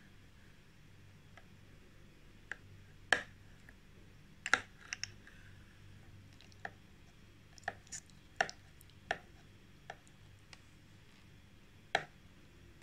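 Knife blade clicking and tapping against a plastic tray as it cuts through set agar-agar fruit jelly: a dozen or so short, sharp, irregular taps, the loudest about three seconds in, again around four and a half seconds in, and near the end. A faint steady hum lies underneath.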